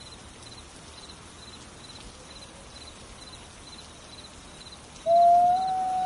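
A wolf howling: one long, steady howl that starts suddenly about five seconds in, rising slightly at first and then held. Before it, an insect chirps faintly in the background, a short pulsed call repeating about twice a second.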